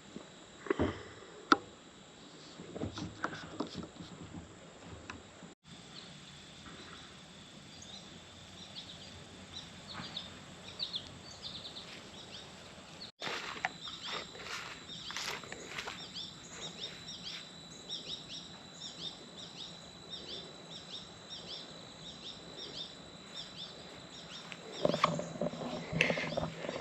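Outdoor ambience: birds chirping in short high calls over a steady high-pitched insect drone. A few sharp knocks come in the first two seconds.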